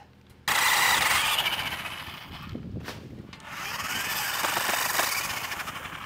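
Battery chainsaw cutting a tree limb: it starts abruptly about half a second in, eases off around three seconds, then runs again and trails off near the end.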